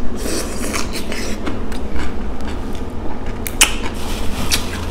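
Close-miked crunching and chewing of a marinated cucumber slice: a run of crisp crackles and clicks, with one sharper crunch about three and a half seconds in.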